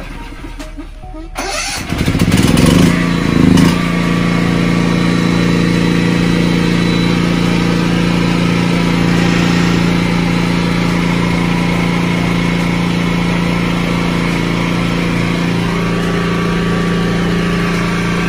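Mytee Escape electric truck mount starting up: its motors wind up about two seconds in, surge briefly and settle by about four seconds into a steady, loud running drone.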